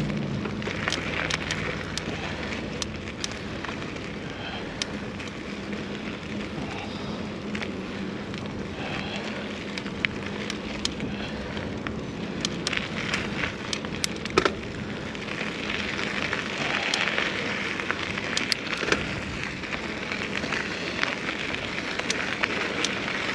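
Mountain bike rolling along a trail: steady rushing tyre noise with frequent small clicks and rattles from the bike, and a sharper knock about fourteen seconds in.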